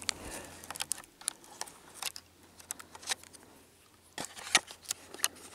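Scattered small clicks and taps of hands working a trail camera strapped to a pine trunk, with a sharper cluster about four seconds in.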